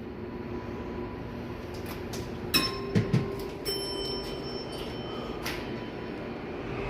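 Station passenger elevator in operation: a few sharp clicks and clunks around the middle, then an electronic chime ringing for over a second, over a steady low hum.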